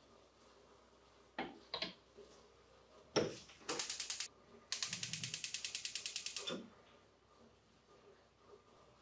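A stainless steel pot knocks down onto a gas hob's grate, then the hob's spark igniter clicks rapidly, about ten clicks a second, in a short run and then a longer run of nearly two seconds as the burner is lit. A brief low rumble during the second run is the gas catching.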